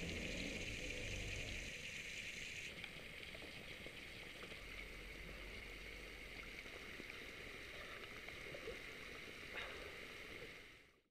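Garden hose spraying water in a steady hiss as it rinses mud off a mountain bike and then off a person; the hiss softens about three seconds in. A short sharp knock comes near the end.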